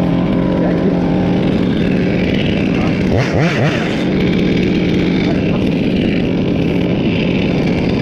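Gas chainsaw idling steadily, given a short rev about three seconds in.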